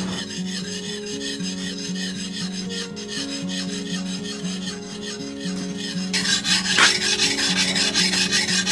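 A knife being sharpened: the blade is scraped back and forth on a sharpening stone in a quick, steady run of rasping strokes that grows louder about six seconds in.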